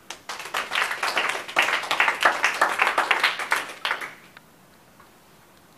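Applause from a small group of people clapping for about four seconds, then stopping.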